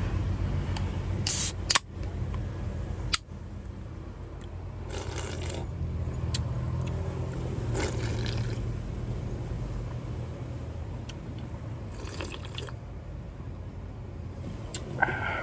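A drink can's ring-pull snapped open with a short, sharp hiss about a second and a half in, followed by several sips and swallows, over the steady low hum of an idling car.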